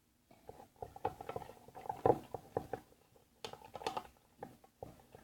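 Pencil stirring a hand-soap and water slime mixture, making light, irregular tapping and clicking.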